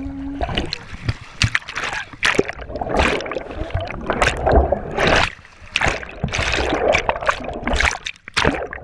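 Water splashing and sloshing around a chest-mounted GoPro in its waterproof case as it dips under and breaks the surface, heard as uneven bursts of rushing noise.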